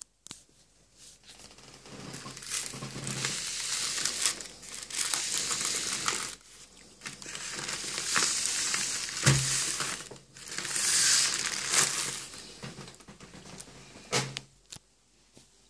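Crinkling and rustling of a firecracker pack's red wrapping as it is handled and turned, in several stretches, with a short thump in the middle.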